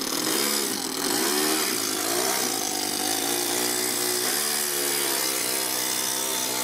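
Toyan FS-S100 four-stroke single-cylinder overhead-cam engine in an RC crawler, revving up and down over and over as the throttle is worked to crawl the rear-wheel-drive truck over rocks.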